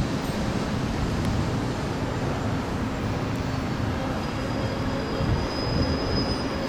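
JR Central 211 series electric train, coupled to a 313 series set, running slowly into a station platform with a steady rumble. A thin high squeal sets in about four seconds in as it brakes toward its stop.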